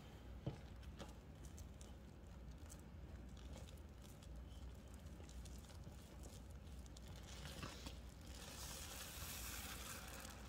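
Wet soapy paste of baking soda and toilet-bowl cleaner being squeezed and worked by hand: faint soft crackles and squelches, with a louder hiss for about two seconds near the end.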